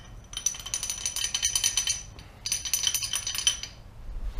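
Hand ratchet wrench clicking rapidly with a metallic ring while backing out engine bolts, in two runs of about a second and a half each, then a thump at the very end.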